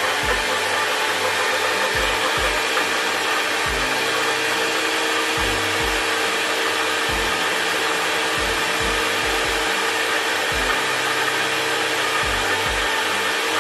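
Philips HR3752 high-speed vacuum blender running on its vacuum and smoothie program: a steady whirring motor noise that holds an even level while it purées chunks of fruit.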